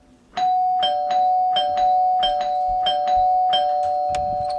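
Two-tone doorbell chime rung over and over in quick succession, about five ding-dongs in a row, each strike ringing on, which signals someone at the door.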